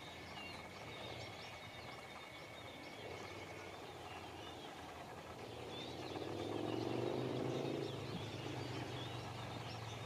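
Small birds chirping and singing, many short high calls with one thin held note for the first few seconds. Underneath runs a low steady hum that swells for a couple of seconds in the middle.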